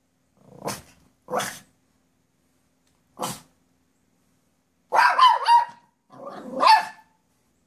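A poodle barking at a squirrel outside: three short single barks, then two longer, louder runs of barks near the end.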